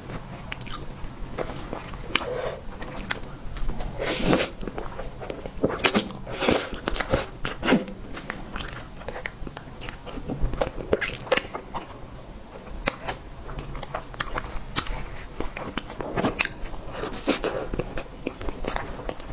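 Close-up chewing and mouth sounds of a person eating, with irregular wet smacks and clicks.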